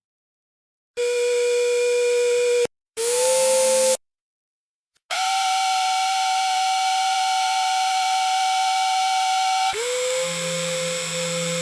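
Autorefractor motor whirring in separate runs, each a steady whine that starts and stops abruptly with silences between. Two short runs are followed by a longer one at a higher pitch; about ten seconds in it drops to a lower whine with a deeper hum beneath.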